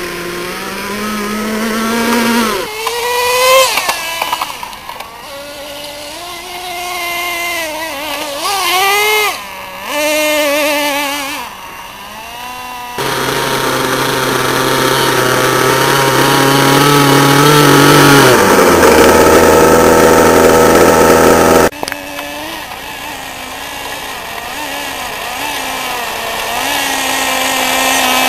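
Small nitro engine of a radio-controlled touring car revving up and down as the car drives, its pitch rising and falling. The sound changes abruptly about halfway through and again about three-quarters through.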